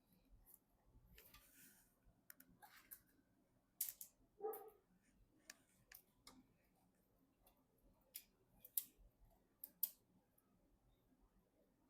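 Faint, scattered small clicks and taps from PC parts being handled during assembly, with a brief rustle near the start and a soft knock about four and a half seconds in.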